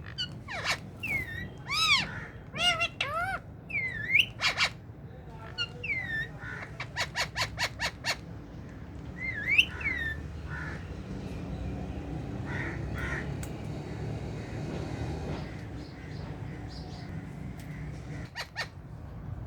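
Indian ringneck parrots calling: a series of loud squawks and arching, whistled chirps, including a fast run of short calls about six a second. After about ten seconds the calls thin out to a few faint ones over a steady low background noise.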